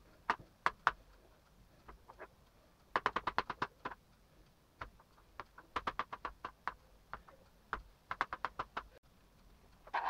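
Knife slicing a peeled banana on a plastic cutting board: quick runs of sharp taps as the blade goes through and hits the board, several taps a second, with short pauses between runs.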